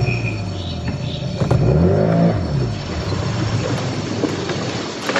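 An engine running, its pitch rising and falling about two seconds in.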